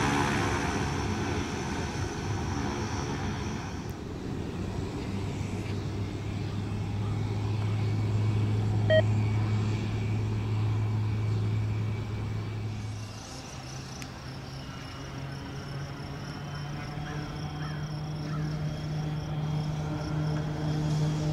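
Quest Kodiak 100's single PT6A turboprop running at taxi power as the plane taxis past: a steady low propeller hum whose pitch steps up about thirteen seconds in. A short sharp blip about nine seconds in.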